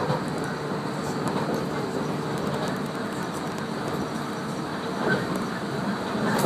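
Running noise of a 115 series electric train heard from inside the carriage at speed: a steady rumble of wheels on rail, with a few brief knocks.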